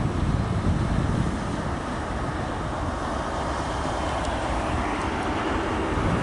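A GWR Class 43 HST diesel power car passing close by, its engine running and its wheels rumbling on the rails as a steady, dense low rumble.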